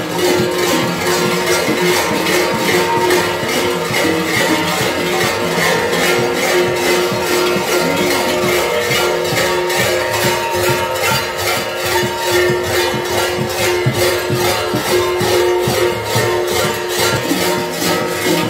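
Kukeri bells (hlopki), the large metal bells hung on a kuker's belt, clanging and jangling together in a steady, unbroken rhythm.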